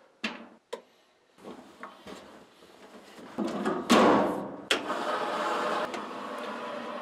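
Laundry being handled at a top-loading washing machine: a couple of sharp clicks near the start, then a loud clatter about four seconds in as the lid is shut, followed by a steady rushing noise.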